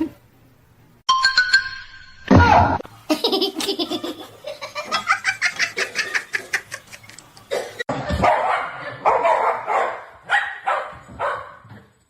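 Laughter in quick, evenly spaced bursts from about three seconds in, followed by more broken, uneven bursts toward the end.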